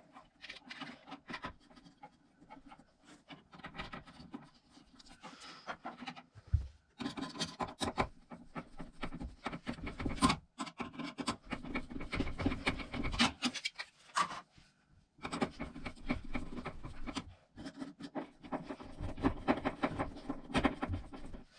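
Plastic smoke alarm being handled and fitted onto its mounting plate: rubbing and scraping of plastic parts with many sharp clicks.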